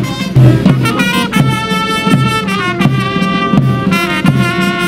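Ceremonial brass band playing a tune in held trumpet-like notes over a steady low beat of about two a second.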